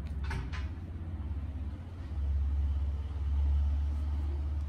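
A steady low rumble that swells about two seconds in and stays loud. Near the start come two quick scrapes of hands sliding over a cardboard box.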